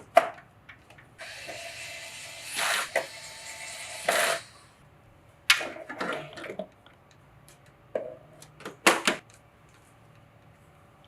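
Hands working on PC hardware: a steady whirring hiss for about three and a half seconds, swelling twice, then several sharp clicks and taps of parts being handled.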